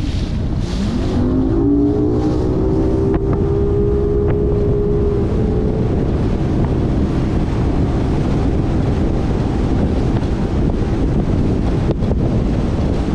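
Bass boat's outboard motor accelerating, its pitch rising over the first couple of seconds and then holding steady, under heavy wind buffeting the microphone. About halfway through, the engine's tone sinks into the wind rumble.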